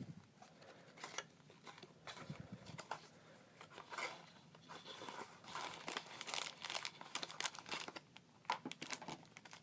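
Blind-box packaging of a collectible mini figure being opened by hand: a quiet, irregular run of crinkling and rustling with small clicks and tearing.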